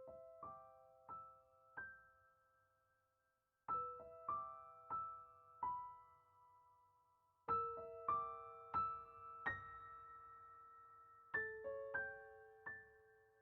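Soft, slow piano music: short phrases of a few struck notes that ring and fade, with brief pauses between phrases.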